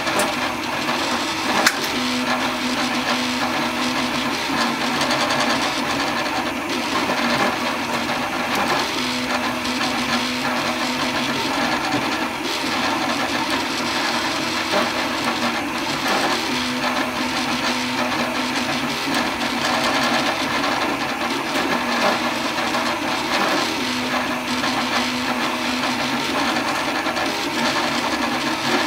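FDM 3D printer mid-print: its stepper motors whine in shifting tones as the print head moves back and forth, over the steady whir of the print-head cooling fan. A single sharp click comes about a second and a half in.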